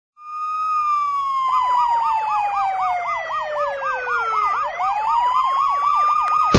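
Police siren: a long wail that slides slowly down in pitch and, about four and a half seconds in, sweeps back up. A second, fast warbling siren joins about a second and a half in, pulsing about four times a second.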